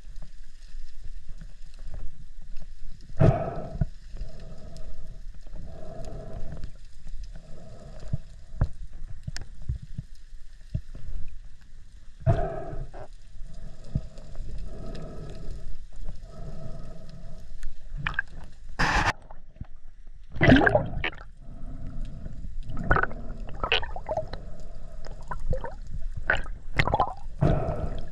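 Water heard through an underwater camera housing: a steady low rumble with a short hum repeating every second or so, then several sharper, louder gurgling splashes in the second half.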